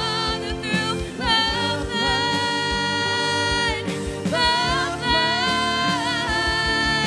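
A woman singing a worship song live into a microphone with band accompaniment, holding long notes with vibrato over a steady low drum beat.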